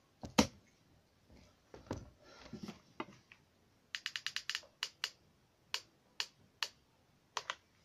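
Sharp clicks from small hand tools at a model-making bench: snips snapping shut twice near the start, then a fast run of about seven clicks and several single clicks as a hot glue gun is worked against a card model.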